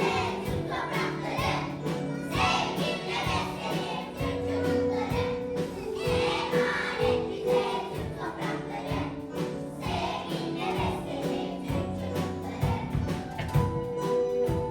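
A song with a chorus of children's voices singing over a musical backing.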